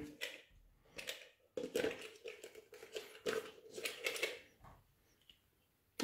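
Plastic handling noise from a cordless stick vacuum's clear dust container and its round HEPA filter being worked by hand: a string of light clicks, knocks and rubbing for about four and a half seconds.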